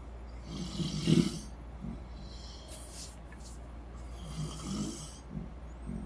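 A sleeping person snoring: a loud, rough snore about a second in and another, weaker one around four to five seconds in, each carrying a breathy hiss.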